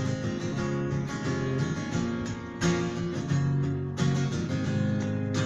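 Acoustic guitar strummed, playing chords of a song's instrumental intro, with a few heavier strums standing out.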